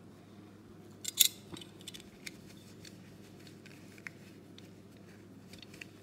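A metal belt buckle being dried off by hand: a few scattered small metallic clicks and taps, the sharpest about a second in, over faint handling noise.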